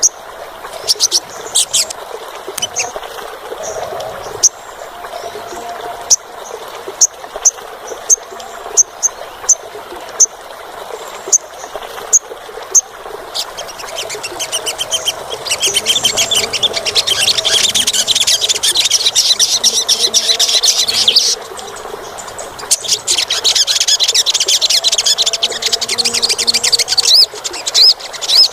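Olive-backed sunbird (sogon) calling: sharp, high single chips about once a second, then from about halfway a rapid, shrill, continuous twittering song that breaks off briefly and resumes near the end.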